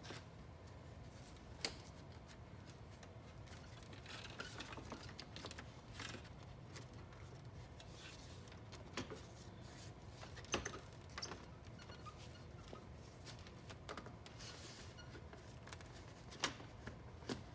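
Plastic grille being handled and seated onto a plastic bumper cover: scattered light clicks and taps, about ten over the span, as its anchors go into the holes.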